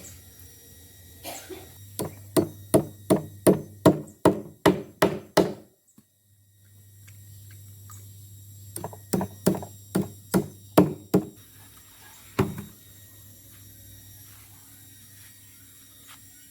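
Hammer striking wood in steady blows, about three a second: a run of about a dozen, a pause, then about eight more and a last single blow.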